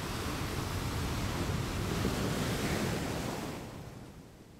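Ocean surf sound effect: a single wave washing in, building over about two seconds and then fading away near the end.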